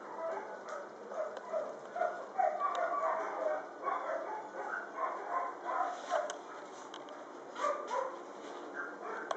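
A dog giving short whines and yips over and over, in quick succession.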